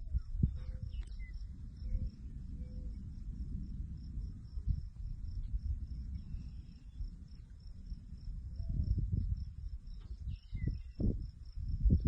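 An insect chirping in an even pulse, about three chirps a second, over a low rumbling noise that comes in gusts and is loudest near the end.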